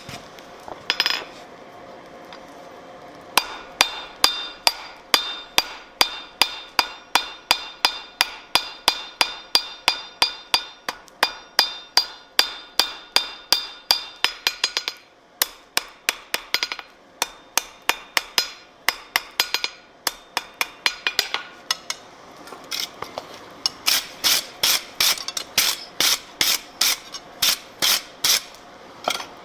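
Blacksmith's hand hammer striking a red-hot bar on a steel anvil, steady blows about three a second, each one ringing. The blows come in runs, with short pauses about halfway through and again shortly before a final, brighter run near the end.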